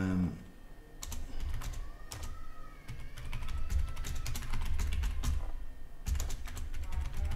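Typing on a computer keyboard: a run of quick key clicks, with a brief pause about two-thirds of the way through before the clicking resumes.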